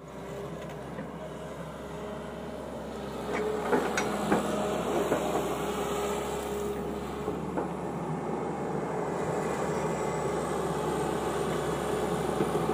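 Tata Hitachi EX200LC tracked excavator running steadily as it digs, getting louder about three seconds in, with a handful of sharp knocks around four seconds in.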